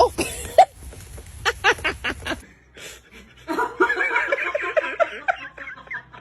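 A person laughing in quick, wavering bursts that start about three and a half seconds in, after a couple of seconds of short sharp clicks and knocks.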